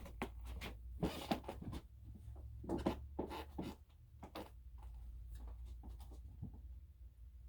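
Handling noise: a string of small clicks, knocks and rustles during the first four and a half seconds, then only a faint low hum.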